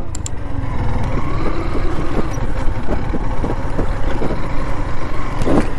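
Motorcycle engine running at low road speed on a rough dirt track, picking up a little speed, with a steady low rumble throughout.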